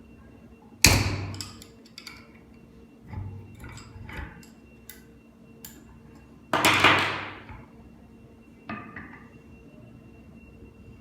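Knocks and clicks from a manual crimping machine as it is adjusted and set for the bottles. Two loud knocks about five and a half seconds apart, the second ringing out longer, with lighter knocks and clicks between.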